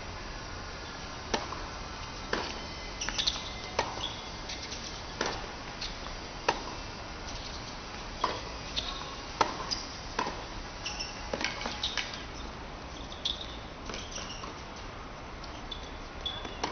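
Tennis ball struck by rackets and bouncing on a hard court during a rally, a sharp pop about every second, starting with the serve about a second in. A few short shoe squeaks are heard between the hits.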